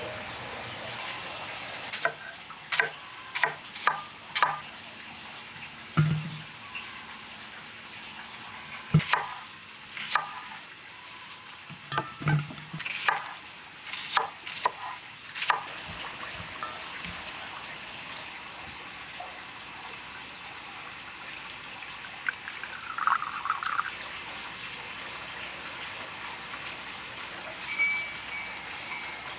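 Chef's knife chopping unpeeled bananas on a wooden cutting board: irregular sharp chops for about fourteen seconds over a steady hiss. Near the end a spoon stirs in a small ceramic bowl.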